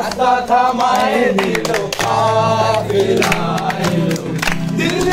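A group of young men singing a song together to a strummed acoustic guitar.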